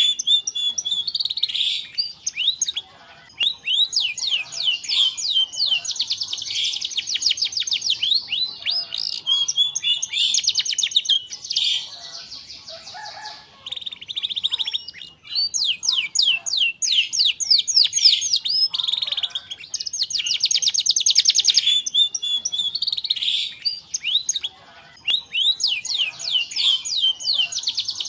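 Domestic canary singing a long rolling song: phrase after phrase of fast, high trills of rapidly repeated notes, with a few short breaks between phrases.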